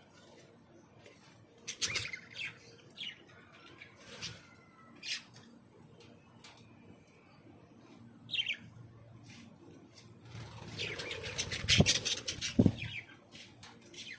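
Aviary birds giving scattered short chirps, then a louder flurry of wing flapping and scuffling about two thirds of the way in.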